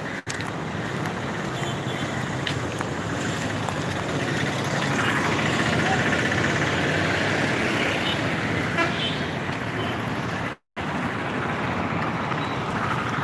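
Street traffic: vehicles running past on the road, with a horn sounding in the middle. The sound cuts out briefly twice, just after the start and about ten and a half seconds in.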